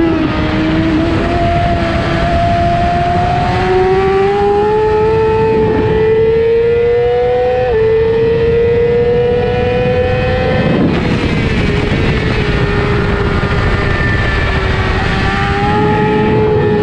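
A 600 cc superbike engine heard from on board at race pace, its note climbing hard through the gears with an upshift about 8 seconds in, then falling away about 11 seconds in as the throttle comes off for the next corner. Heavy wind rush runs under the engine throughout.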